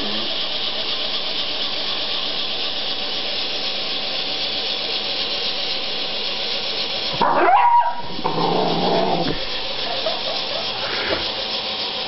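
A dog making short vocal sounds over a steady hiss. The loudest come about seven to nine seconds in, with a fainter one near the end.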